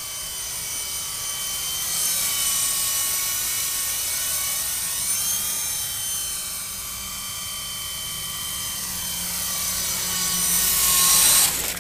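Small battery-powered RC helicopter (Skyrover Phoenix 4-channel) in flight: a high motor and rotor whine with pitch wavering slightly as the throttle changes. It grows louder near the end, then drops off sharply just before the end.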